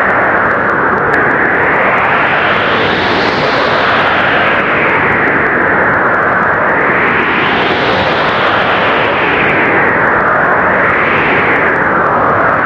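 Strong blizzard wind blowing with a loud, steady rush that swells and eases in gusts every few seconds.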